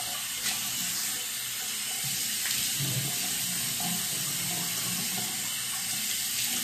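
Bathroom sink faucet running steadily into the basin while water is splashed onto the face by hand, with uneven splashes through the middle.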